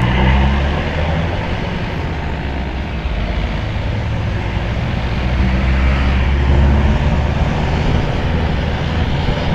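Bus engine running with road noise, a steady low rumble.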